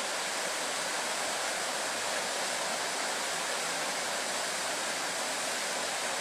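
Steady rushing of a river waterfall, an even hiss of water with no engine note standing out.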